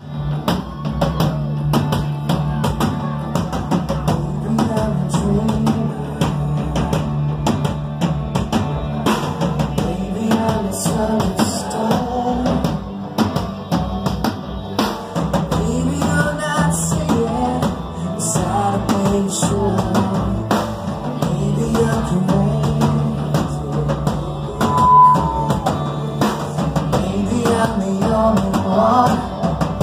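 Live rock band playing, with a drum kit, electric guitar and bass under a man singing lead vocals.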